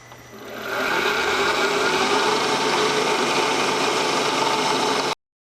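Milling machine making a cut in metal, taking the part to size: the cutting noise builds up over the first second as the cutter engages, runs steady and loud, then stops abruptly near the end.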